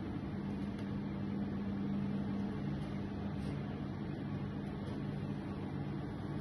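Steady low hum of a running kitchen appliance, unchanging throughout.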